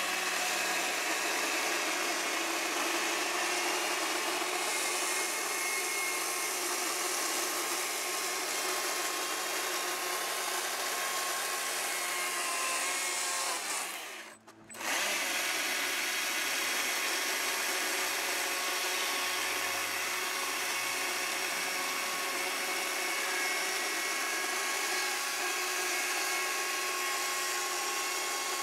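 Stihl battery chainsaw running and cutting into a wooden log, carving the deep top-to-bottom grooves of a pumpkin's ridges. The steady motor whine stops briefly about halfway through, then the sawing picks up again.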